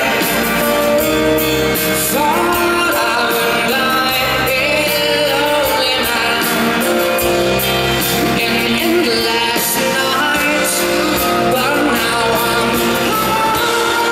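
Live pop-rock band playing a ballad, with a male lead vocal singing over it.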